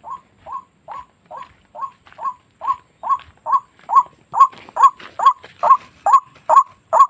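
White-breasted waterhen (ruak-ruak) calling: one short call repeated evenly about twice a second, each dropping in pitch, growing steadily louder over the first few seconds and then holding.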